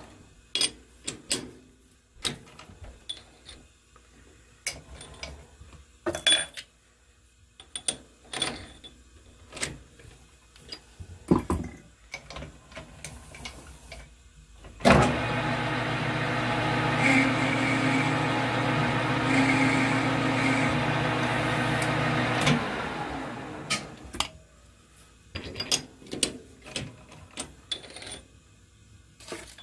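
Clinks and knocks of steel workpieces and the lathe chuck being handled. About halfway through, the metal lathe starts and runs steadily for about seven seconds, then winds down. More scattered clinks follow as a piece is handled in the chuck.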